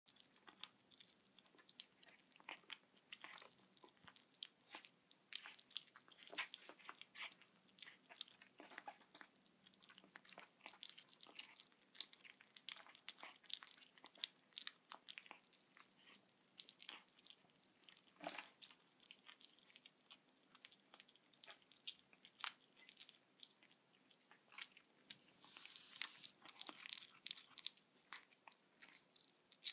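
Six-week-old Bengal kitten chewing a raw pinkie mouse: faint, irregular wet crunches and small clicks of tiny teeth on flesh and bone, coming thicker near the end.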